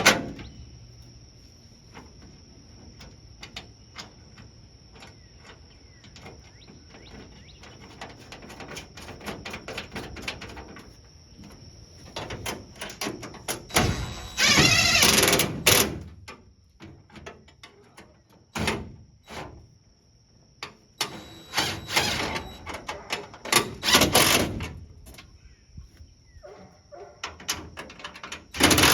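Hand work on sheet-metal car decking while an oil cooler is fitted and bolted in: scattered clicks and clanks of tools and metal parts. Two louder, harsher bursts, each a second or two long, come about halfway through and again a few seconds later.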